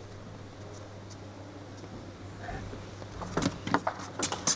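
Table tennis rally starting: after about three seconds of steady low hall hum, the ball gives several sharp clicks in quick succession as it is served and struck off bats and the table.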